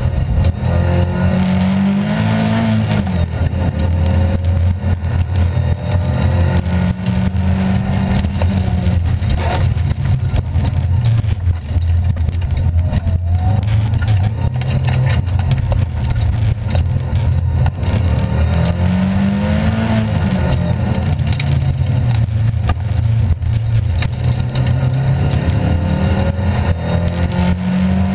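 Rally car engine heard from inside the cabin, driven hard on a wet track, its revs climbing and dropping again and again, over steady tyre and road noise.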